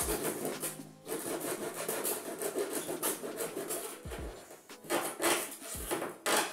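A thin blade sawing back and forth through the wall of a large plastic mineral-water jug: a rasping scrape, with a few louder strokes near the end.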